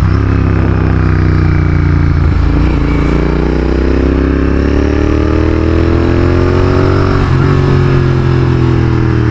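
Royal Enfield Continental GT 650's parallel-twin engine running through an AEW aftermarket exhaust with the dB killer removed, pulling steadily on the road. The pitch climbs gradually through the middle and eases a little near the end.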